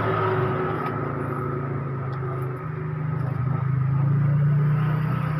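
Epson L120 inkjet printer's internal motor running with a steady low hum as the printer cycles, changing slightly in tone about two and a half seconds in.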